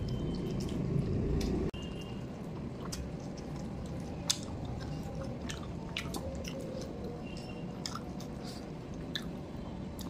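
Close-miked chewing of a mouthful of rice and chicken curry, with many short wet clicks from the mouth. A louder low rumble in the first second and a half cuts off suddenly, and one sharper click stands out a little after four seconds.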